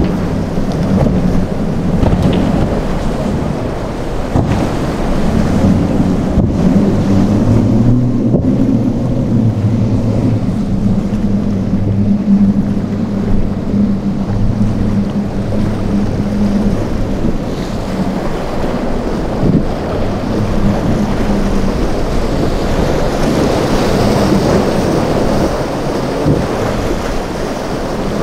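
A passing boat's engine hums steadily for a while and then fades, over waves rushing in the inlet and wind buffeting the microphone. The surf grows louder near the end.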